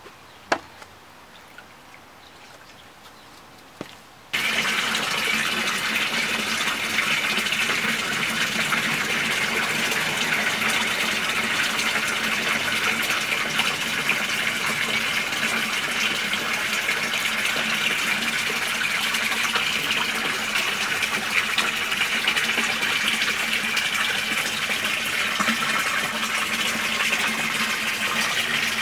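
A few light clicks, then from about four seconds in a steady, loud rush of running water in the goldfish pond.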